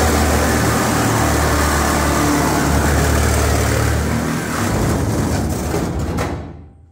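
Reciprocating saw (Sawzall) cutting down through the sheet-steel side of a pickup truck bed. It runs steadily, then stops near the end as the cut reaches the bed floor.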